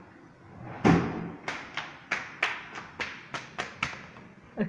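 A loud thud about a second in, followed by a run of quick, sharp taps, roughly three a second, with one more tap near the end.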